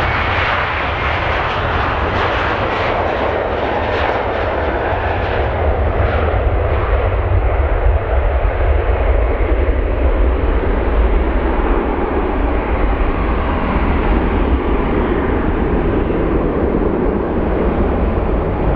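Boeing 737-800's CFM56-7B turbofan engines at take-off thrust as the jet lifts off and climbs away: a loud, steady engine noise with a strong low rumble. The high hiss dulls after about six seconds as the aircraft recedes.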